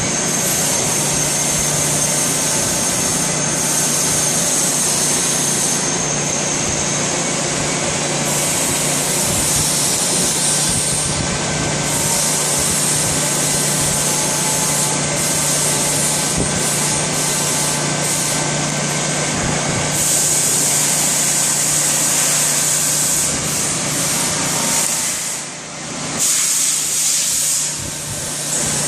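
CNC lathe running, a steady hum under a loud hiss, with a brief dip in level near the end.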